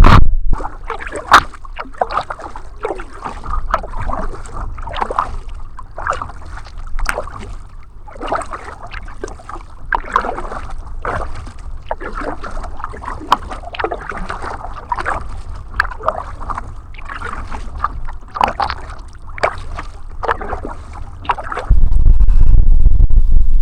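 Paddle strokes dipping and splashing in lake water, an irregular run of small splashes and drips as a paddle board is paddled along. Near the end a loud low rumble takes over.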